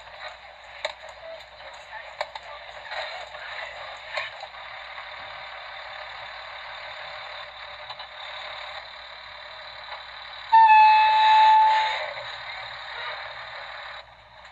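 Movie soundtrack with a thin, tinny sound: a steady noisy background, then about ten seconds in a loud, steady horn blast from a school bus lasting over a second.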